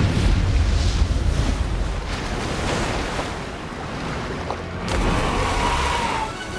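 Loud, steady rushing noise with a deep rumble, like wind or surging water, from an animated film's action sound effects. It is loudest at the start, eases off, and swells again about five seconds in, when a brief high tone glides slightly down.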